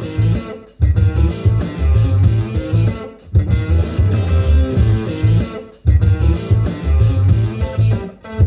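Guitar-and-bass music played at maximum volume through Edifier R1280T powered bookshelf speakers, with treble and bass turned to maximum; the bass is heavy. The music drops out briefly about every two and a half seconds.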